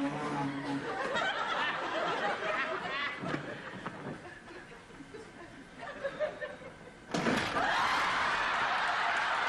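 Studio audience laughing, the laughter thinning out after a few seconds, then a sudden burst of applause about seven seconds in that carries on.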